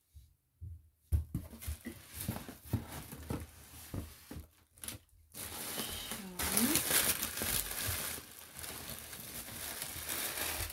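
Plastic wrapping crinkling and rustling as it is handled and pulled out of a cardboard box. Scattered rustles begin about a second in, then a dense, continuous crinkling from about five seconds in.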